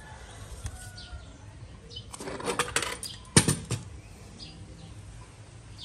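Bare metal bicycle frame being handled and moved on a hard floor: a quick run of metallic rattles and clinks about two seconds in, then one sharp knock and a smaller one.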